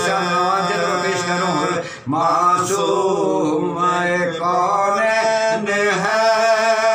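Men's voices chanting soz, the Shia mourning elegy, in long held, wavering notes, with a short break for breath about two seconds in.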